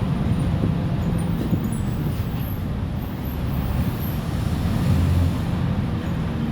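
Mercedes-Benz OF-1418 bus's four-cylinder turbodiesel running under way, a steady low drone that grows a little louder about five seconds in.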